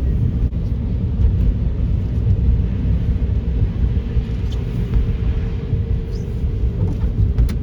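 A car driving, its steady low road and engine rumble heard from inside the cabin.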